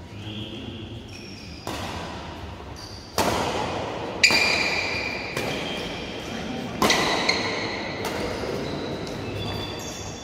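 Badminton rackets hitting a shuttlecock back and forth in a doubles rally: about six sharp hits, the loudest about four seconds in and again near seven seconds. Several hits are followed by a short ringing ping and fade slowly in the echoing hall.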